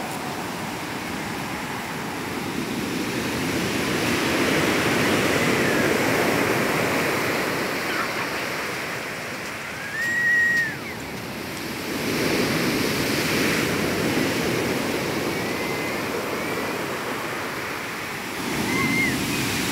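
Rough sea surf: large waves breaking and washing up the beach as a continuous rushing noise that swells and eases twice. About halfway through, a brief high tone rises and falls.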